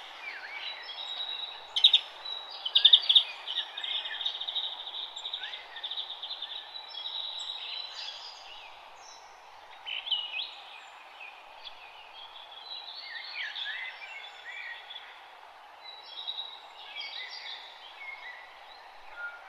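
A chorus of several songbirds chirping and singing over a steady low background hiss, with a rapid trill about three seconds in.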